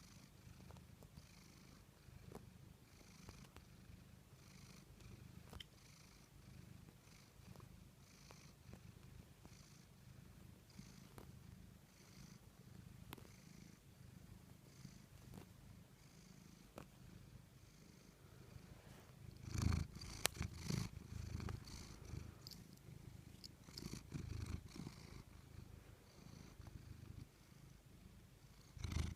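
Tabby cat purring close up, a steady low rumble that swells about once a second with each breath. A few louder rustling bumps come about two-thirds of the way through.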